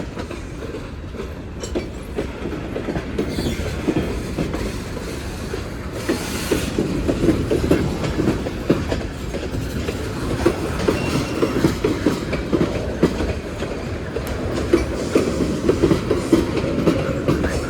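Freight cars of a Union Pacific manifest train rolling steadily past, a continuous rumble with the wheels clicking rapidly and irregularly over the rails.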